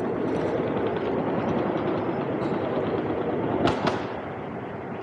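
Steady crackling rumble of movement and handling noise from a hand-held camera carried at walking pace, with a couple of sharp clicks about three and a half seconds in.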